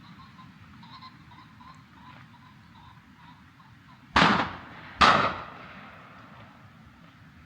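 Two shotgun shots less than a second apart, each a sharp crack with a short echoing tail, fired at driven pheasants.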